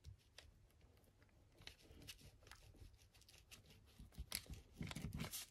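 Near silence with faint paper rustling and light taps as glued paper is pressed and smoothed down onto a notebook page, a little louder near the end.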